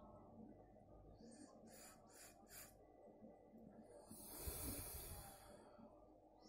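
A person sniffing close to the microphone to check the engine oil for a kerosene smell: a few quick sniffs, then about four seconds in one longer, louder sniff.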